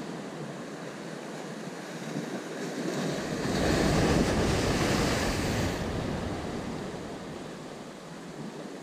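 Sea wave breaking and splashing against a breakwater of concrete armour blocks over a steady wash of surf. The surf swells about three seconds in, is loudest for a couple of seconds, then washes back and fades.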